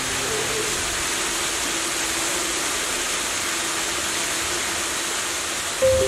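Steady rushing of a waterfall, water pouring without a break.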